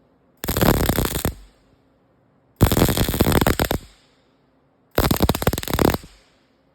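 Wire-feed welding gun arc crackling in three bursts of about a second each, separated by short silent pauses as the trigger is pulled and released: a weld laid down in short stitches.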